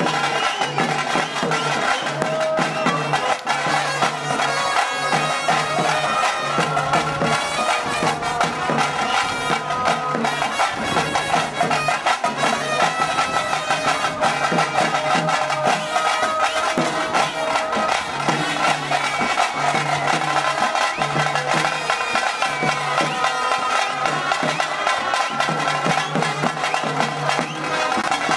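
Loud traditional festival band music: a wind instrument plays a held, wavering melody over a low pulsing drone and fast, dense drumming.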